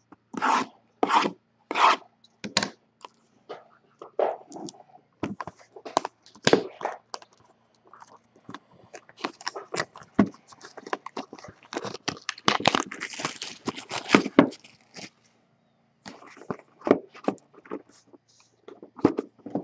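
Packaging on a sealed football trading-card box being torn open and handled: a run of crinkling rips and rustles with cardboard scraping, starting with three sharp rips and busiest past the middle.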